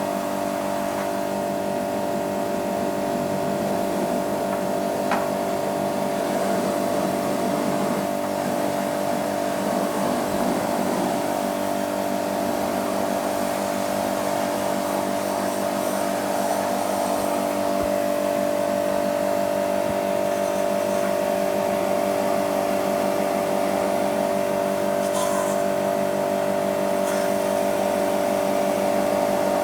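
Electric motor running steadily, a constant hum over a hiss, with a few faint clicks.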